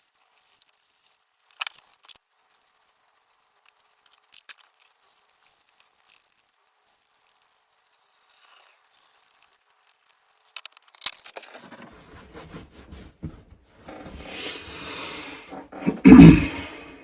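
Scattered light clicks, clinks and scrapes of wet-shaving gear being handled, then a few seconds of swishing as a boar-hair shaving brush works up soap lather, and a loud bump about a second before the end.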